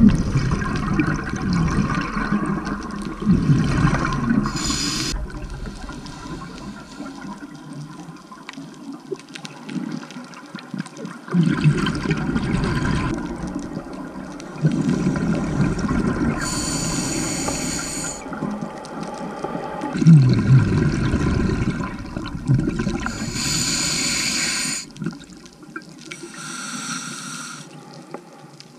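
Scuba diver's regulator breathing, recorded underwater: rumbling bursts of exhaled bubbles alternate every few seconds with shorter, hissing inhalations through the regulator.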